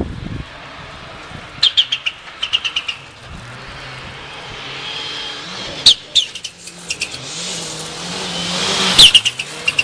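Rally car engine approaching at speed on a gravel stage, growing steadily louder over several seconds, with sharp cracks as it nears. A bird chirps in quick runs about two seconds in.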